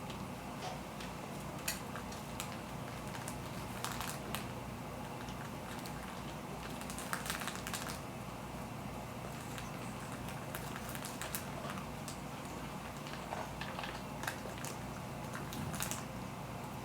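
Irregular small clicks and crackles of pets nibbling and pecking at cat grass, with a cluster of them about seven seconds in, over a steady low hum.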